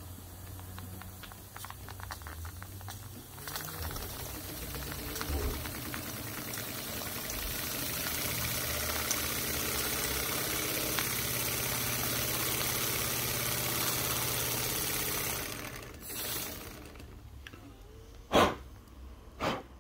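Wilesco model compound steam engine running on live steam: a fast soft clicking of the mechanism, then a loud steam hiss as it speeds up and runs steadily, which cuts off suddenly a few seconds before the end. Two sharp knocks near the end.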